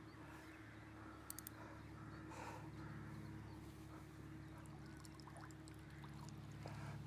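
Quiet background with a faint steady low hum. Three quick sharp clicks come about a second and a half in.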